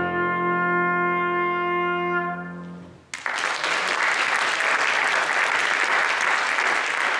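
Trumpet with grand piano holding the final chord at the end of a concerto movement, fading out about three seconds in. Then audience applause breaks out suddenly and continues steadily.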